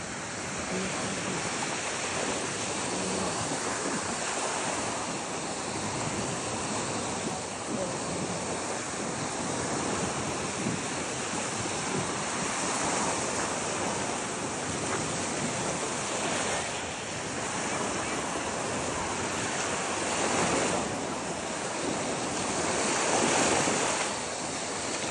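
Ocean surf washing onto a beach in a steady rush, with wind on the microphone; the rush swells louder twice near the end.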